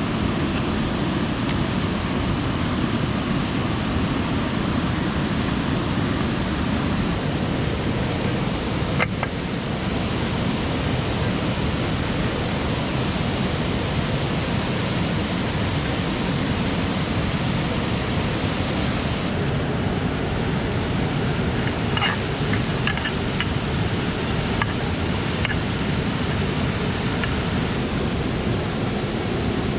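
Steady rush of flowing water from a stream and waterfall. A single sharp click comes about nine seconds in, and a few short high chirps sound a little after twenty seconds.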